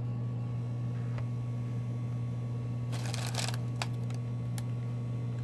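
Upper Deck CHL hockey trading cards being handled: a short rustle of cards sliding against each other about three seconds in, with a few light clicks, over a steady low hum.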